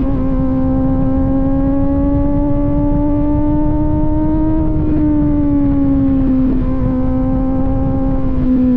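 Kawasaki Z900 inline-four with an aftermarket AR exhaust, running under way at a steady cruise; the exhaust note climbs gently for the first half, then eases off, with a brief dip near seven seconds, over low wind rush.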